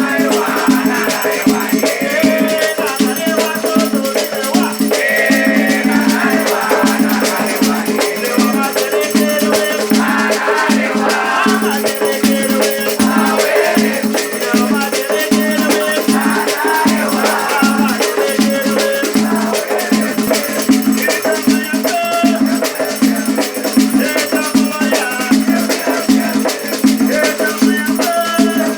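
Afro-Brazilian Batuque ritual music: voices singing together over steadily shaken rattles and percussion.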